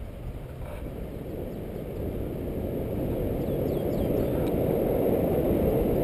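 Wind rushing over the microphone in flight under a tandem paraglider, growing steadily louder: the rush of air from the glider's own forward speed, about 30–40 km/h.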